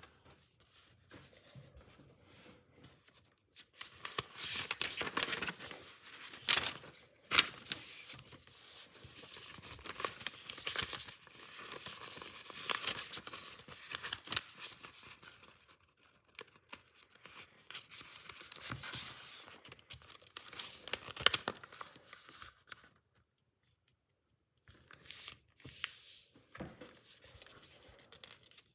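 A square sheet of origami paper being folded and creased by hand: crisp rustling and crinkling with sharp snaps of the paper, stopping for a couple of seconds late on before resuming more softly.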